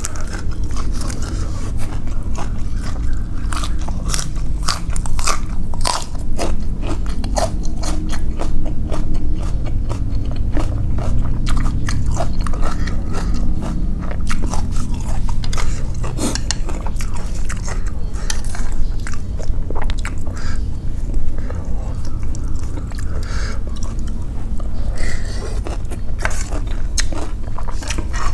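Close-miked eating of pork noodle soup with instant noodles and pork balls: wet chewing with many irregular sharp mouth clicks and crunches, over a steady low hum.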